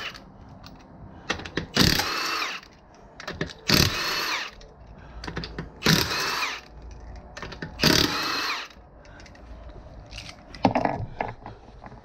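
Milwaukee Fuel cordless impact wrench with a 19 mm socket spinning lug nuts off a car wheel: four short bursts, about two seconds apart, each rising in pitch as the nut breaks loose and runs free. Light clicks come between the bursts.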